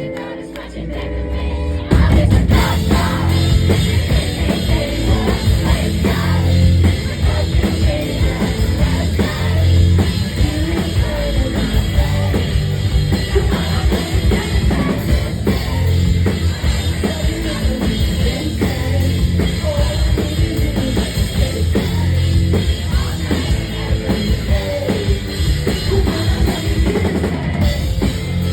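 Live rock band playing at full volume, led by a drum kit with vocals over it. The music drops away briefly at the start and the full band crashes back in about two seconds in.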